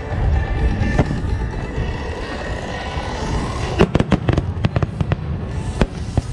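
Aerial firework shells going off: a steady low rumble of booms, a sharp bang about a second in, then a quick string of sharp cracks about four seconds in and one more near the end.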